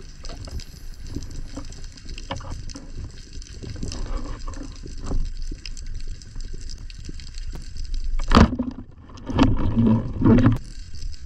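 Underwater sound during a freedive: water moving around the camera, with a low rumble and scattered small clicks. There is a sharp knock about eight seconds in, and louder rough low sounds a little after it.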